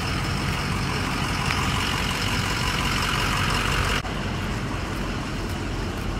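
Steady motor-vehicle and traffic noise, with a sudden short break about four seconds in.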